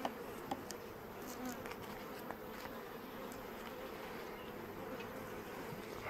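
Honeybees buzzing around an opened hive, a steady droning hum from a colony that is unsettled by the inspection, with a few faint clicks near the start.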